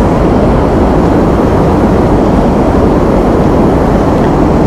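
Steady, loud rushing noise with a low rumble, unbroken and even throughout.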